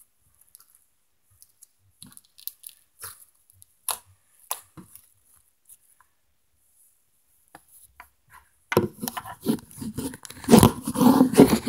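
Slime being kneaded and stretched by hand, with scattered small crackles and pops that turn into louder, denser squishing about nine seconds in.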